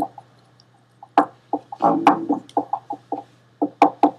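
Pen writing on paper, heard over a voice-call microphone: a quick, irregular run of short scratching strokes, with a longer, fuller stroke about two seconds in, over a steady low electrical hum.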